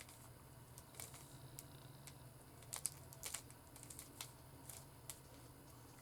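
Faint, irregular clicking of a Rubik's Cube's plastic layers being twisted by hand, with the strongest clicks about three seconds in, over a low steady hum.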